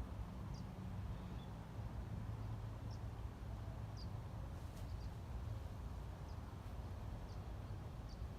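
Quiet outdoor ambience: a steady low hum with faint, short high-pitched bird chirps repeating every second or so.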